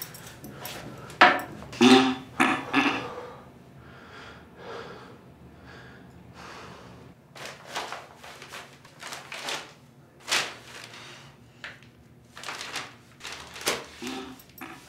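A string of short knocks, clatters and rustles with a small-room echo, in a tiled restroom stall. The loudest bursts come in a cluster between one and three seconds in, followed by scattered lighter knocks.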